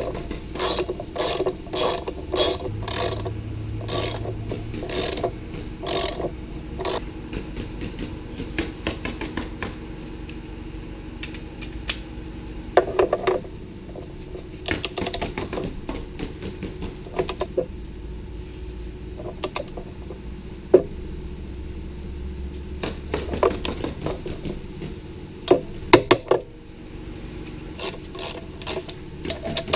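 Ratchet wrench clicking: a fairly even run of about two or three clicks a second for several seconds, then shorter scattered groups of clicks.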